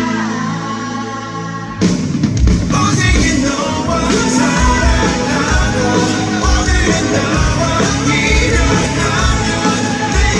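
Live rock band performance with singing: a held, sustained chord, then about two seconds in the full band with drums crashes in and plays on at a driving rock beat.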